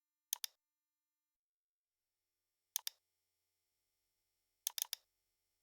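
Computer mouse clicks: a double click about a third of a second in, another a little before halfway, and a quick run of three or four clicks near the end, with silence between.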